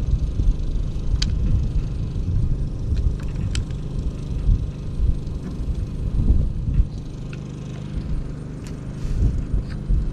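Wind rumbling on the microphone over a steady low hum, with a few light clicks and taps as a welding cable and its connector are handled.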